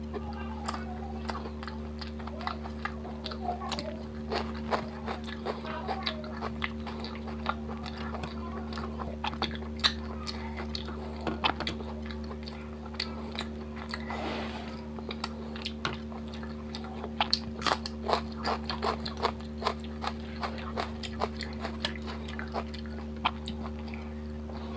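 Close-miked chewing of fish curry and paratha: wet smacking with many short sharp mouth clicks, and a steady low hum underneath.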